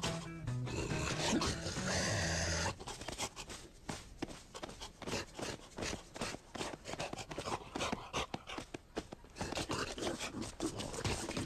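Cartoon sound effects for a rhino scene: a noisy rush for about the first three seconds, then a long run of rapid, irregular scraping and knocking strikes.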